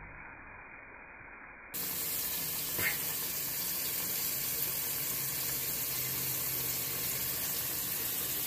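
Steady hiss of running water that starts suddenly about two seconds in and carries on evenly, with a brief faint squeak about a second after it starts.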